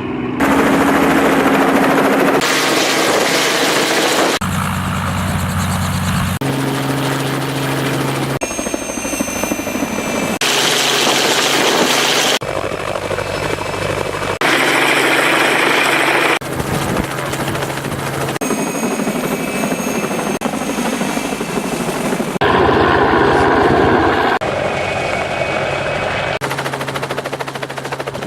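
Helicopters running in a quick series of short clips, the sound changing abruptly every two seconds or so; each holds a steady rotor and engine hum, and some carry a high steady whine.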